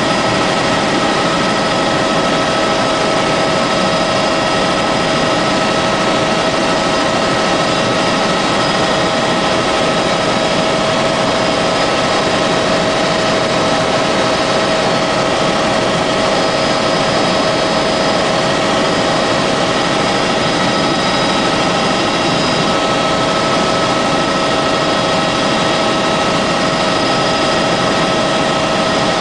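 Helicopter in flight heard from inside the cabin: steady engine and rotor noise, a constant high whine over a rushing hiss.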